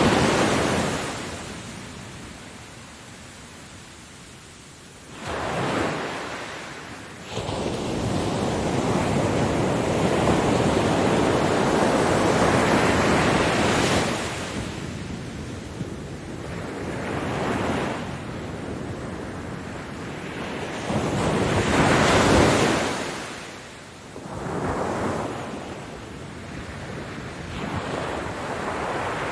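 Ocean surf on a beach: waves break one after another, each swelling into a rush of noise and then washing away, with quieter lulls between them.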